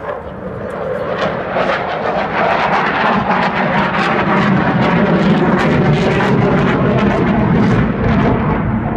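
Dassault Rafale fighter jet's twin jet engines during a display flight. A loud, rushing jet noise grows steadily louder over the first few seconds as the aircraft nears, then holds loud.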